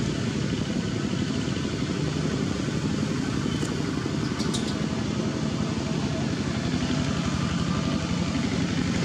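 Steady outdoor background noise, a low rumble, with a couple of faint high clicks about four seconds in.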